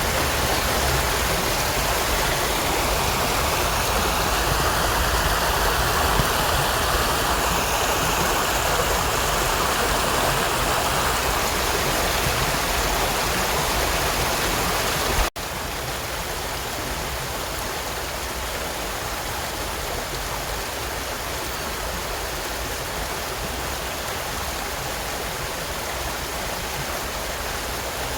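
Stream water rushing and babbling steadily. About halfway through it cuts off abruptly and goes on a little quieter, a splice between two recordings of flowing water.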